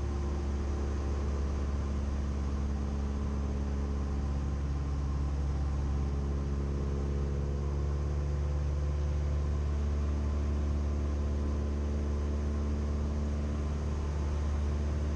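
Cessna 172M's four-cylinder Lycoming engine and propeller droning steadily in the cabin, an even low drone with no change in power.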